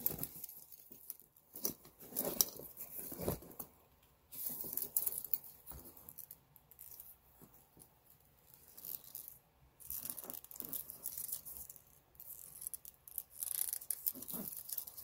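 Handling of a canvas military rucksack with leather straps: irregular bursts of canvas rustling and straps and buckles shifting, with quiet gaps between.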